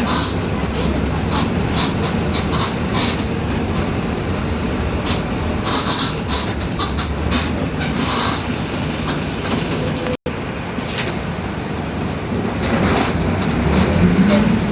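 Cabin noise of a Mercedes-Benz OF-1721 bus under way: the engine and drivetrain run steadily beneath frequent rattles from the body and fittings. The low drive noise is the drone the owner puts down to a growling differential. The sound cuts out completely for an instant a little after ten seconds.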